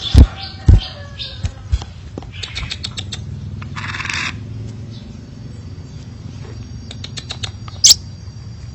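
A crimson sunbird's sharp, high chirp near the end, sparse amid a field recording with a steady low hum. Two loud low thumps come in the first second, followed by scattered clicks and a short hiss about halfway through.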